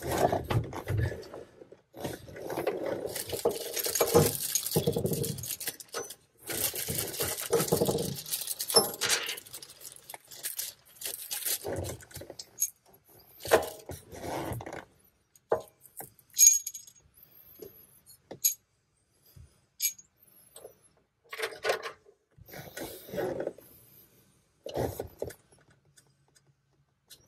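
Hand work on a manual transmission's shifter housing: two long scraping or rubbing passes in the first several seconds, then scattered small clicks, taps and metal clinks as the shifter parts and new bushing are handled.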